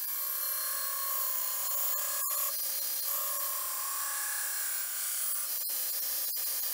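Belt grinder grinding the bevels into a 5160 spring-steel sword blade: a steady grinding hiss with a faint whine that drifts in pitch. It is broken off briefly a few times.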